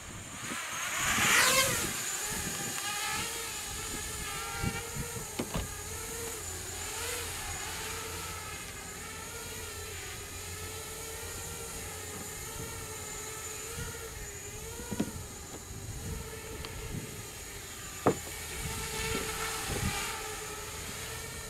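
Furibee X215 Pro racing quadcopter's brushless motors and propellers whining in flight, the pitch wavering up and down as the throttle changes. It surges loudest about a second in, and a few short sharp knocks come later.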